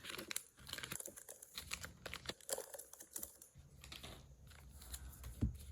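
Trading cards and crinkly plastic packaging being handled: a quick, irregular run of light clicks and crinkles.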